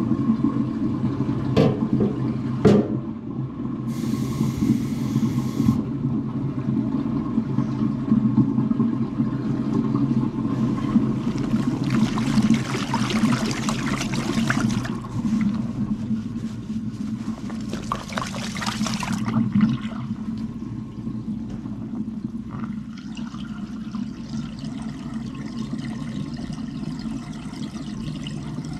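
Water running and draining through kitchen sink plumbing, with a steady low hum underneath. Two sharp knocks come about two seconds in, and the water surges twice near the middle.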